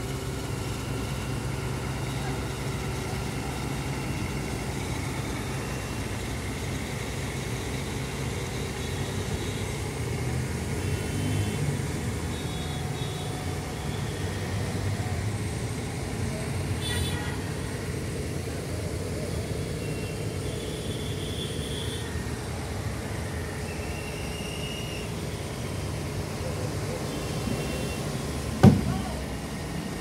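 Heavy mobile crane's diesel engine running steadily as it lifts a concrete bridge girder, with distant voices and a few short high tones coming and going. A single sharp knock sounds near the end.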